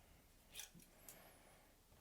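Near silence: room tone, with two faint clicks about half a second and about a second in.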